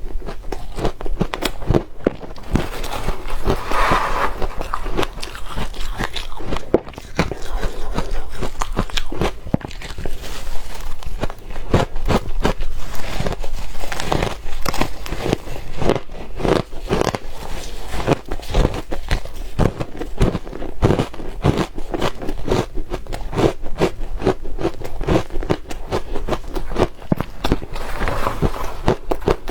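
Soft, powdery ice being bitten and chewed close to the microphone, a dense run of crunching and crackling strokes.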